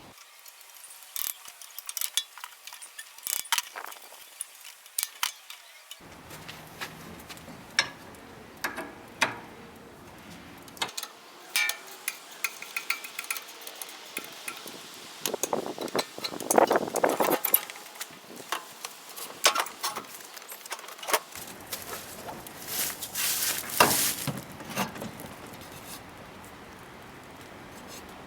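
Irregular metal clinks and taps, with stretches of scraping, as rusty table-saw parts and hand tools are handled and scrubbed.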